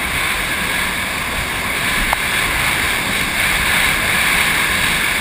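Jet ski running across open water: a steady rush of engine, water and wind noise on the microphone.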